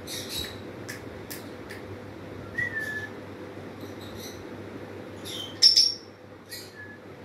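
African grey parrot giving a short falling whistle, then a sharp high chirp (the loudest sound) and another brief whistle, among scattered soft clicks.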